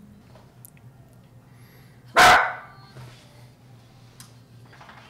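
A dog barks once, loudly and briefly, about two seconds in.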